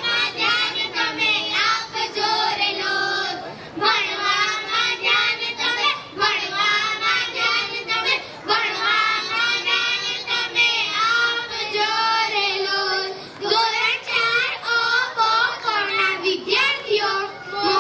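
A group of children singing a song together into microphones, with short breaks between sung phrases.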